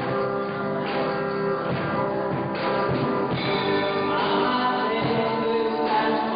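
Music with guitar and singing.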